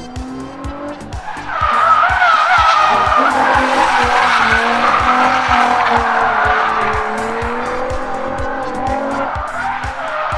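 Nissan Z33 drift car's 3.5-litre V6 revving hard, its pitch rising and falling, with tyres squealing and skidding through a drift; it gets louder about a second and a half in. A music track with a steady beat plays underneath.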